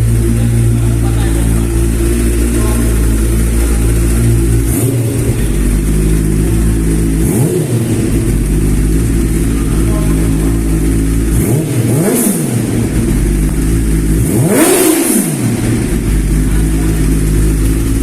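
Kawasaki ZX-10R SE inline-four with an Arrow aftermarket muffler idling and being free-revved four times, each rev climbing and dropping back to idle, the last one the highest and longest.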